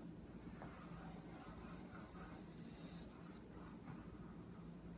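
Faint scratching of an orange chalk pastel stick rubbed across construction paper as a circle is drawn, over a low steady hum.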